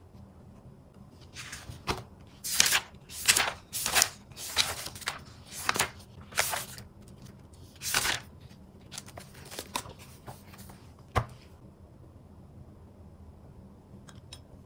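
Paper rustling as the pages of a spiral-bound notebook are opened and flipped: a run of short, crisp swishes, with a sharp tap about two seconds in and another about eleven seconds in.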